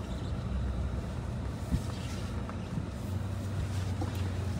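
Low, steady engine and tyre rumble inside the cabin of a Skoda Kodiaq 4x4 SUV with a 2.0-litre petrol engine, crawling over dry dirt. A single sharp knock comes a little under two seconds in.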